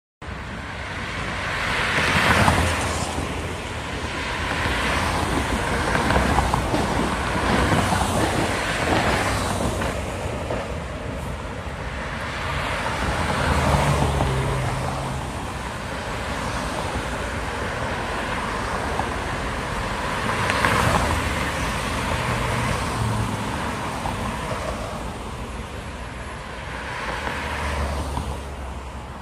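Road traffic on a multi-lane street: cars passing one after another, the tyre and engine noise swelling and fading as each goes by, over a steady background of traffic.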